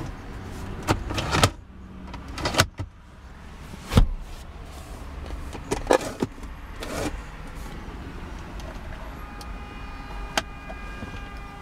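Plastic interior trim of a BMW 3 Series coupe's rear centre armrest and console being handled: a series of separate clicks and knocks as the armrest folds and the storage lid opens and shuts, the sharpest click about four seconds in. A steady, held tone of several pitches joins near the end.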